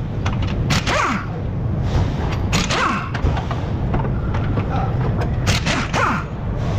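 Impact wrench fired in several short bursts on a ball-joint nut of a car's front suspension, each burst a sharp rattle, some trailing off in a falling whine, over a steady low rumble.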